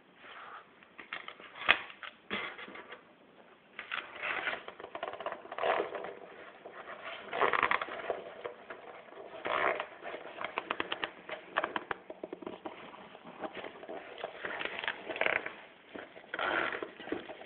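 Rustling and crinkling of a fabric cosmetic bag being opened, squeezed and handled close to the microphone, with scattered clicks and knocks.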